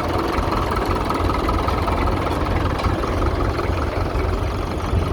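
Ferguson FE35 tractor engine running steadily at an even speed.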